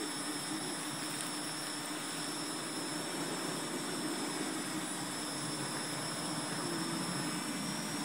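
Parrot Anafi quadcopter drone in flight: a steady propeller buzz with a hum that wobbles slightly in pitch now and then.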